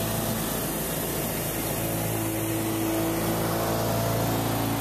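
Cabin noise of an experimental battery-powered electric plane in flight: a steady drone from its electric motor and large rear propeller over rushing airflow, with a slightly stronger hum briefly near the middle.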